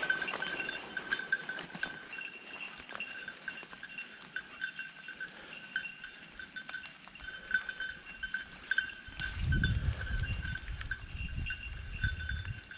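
Bell on a hunting dog's collar ringing in irregular jingles as the dog moves, with a low rumble on the microphone from about nine seconds in.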